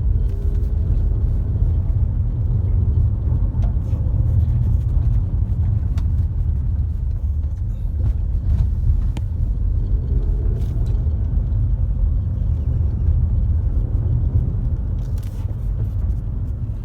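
Steady low road and drivetrain rumble heard inside the cabin of a moving 2019 Toyota RAV4 Adventure, with a few faint light clicks now and then.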